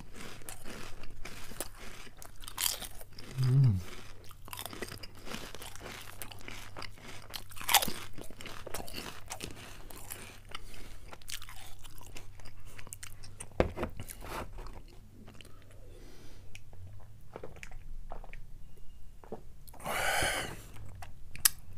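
Potato chips being chewed close to the microphone: a run of sharp crunches, thick at first and thinning out in the second half. Near the end comes a longer, fuller sound of a drink from a beer can.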